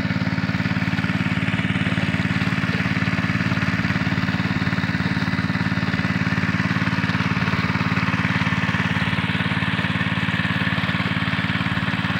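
Small portable engine-driven water pump running steadily under load, pumping water through its hoses. The engine holds an even, unchanging chug throughout.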